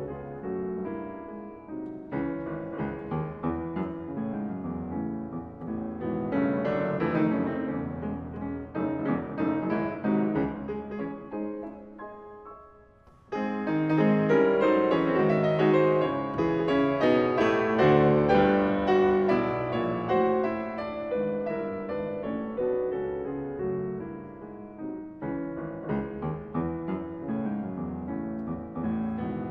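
Concert grand piano playing classical music solo. A phrase thins out and fades almost to silence about twelve seconds in, then a louder, fuller passage begins and continues.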